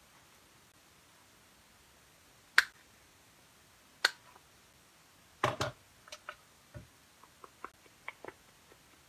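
Handheld corner-rounder paper punch snapping through the corners of a foiled card, with sharp loud clicks about two and a half and four seconds in and a close pair about five and a half seconds in. Lighter clicks and taps follow as the card is handled.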